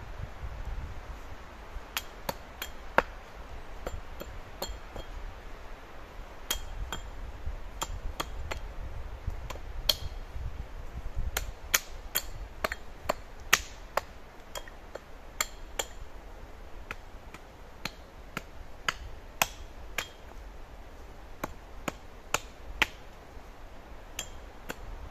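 Repeated sharp strikes of a metal tool on wood, each with a short metallic ring, coming in irregular runs of two to five blows with pauses between.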